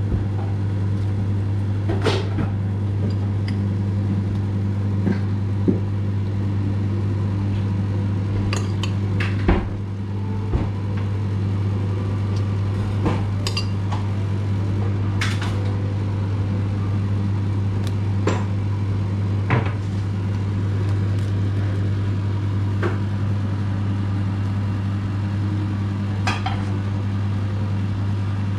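A spoon clinking against a ceramic bowl and plate as a burger topping is served, in scattered sharp clinks every second or two. A steady low hum runs underneath.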